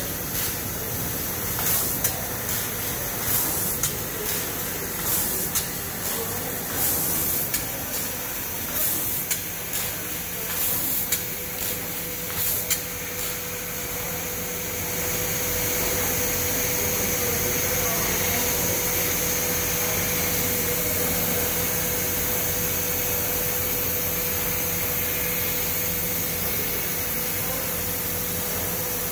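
TRUMPF TruMatic L 2530 laser cutting machine running with a hiss of air or gas. For the first dozen seconds it comes in many short bursts; from about fifteen seconds on it turns into a steadier, slightly louder hiss with a faint steady hum.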